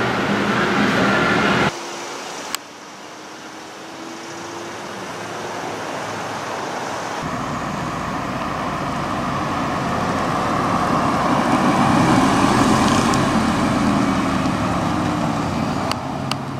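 Mazda MX-5 roadster with its 2.0-litre four-cylinder engine driving slowly past. The engine and tyre noise build up, peak about twelve seconds in and then fade as the car moves away. A brief stretch of indoor room noise comes first.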